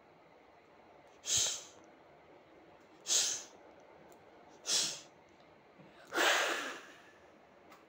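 A person exhaling sharply four times, a second and a half to two seconds apart, the last breath longer than the others.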